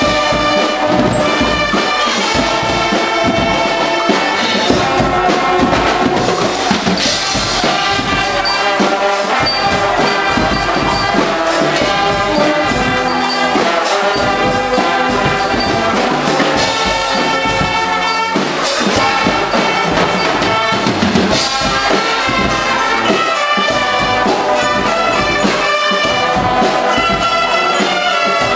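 Guggenmusik brass band playing live and loud: trumpets, trombones and sousaphones blaring a tune together over a steady drum beat.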